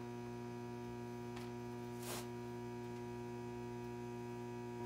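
Steady electrical mains hum with several steady overtones, and a faint brief rustle about two seconds in.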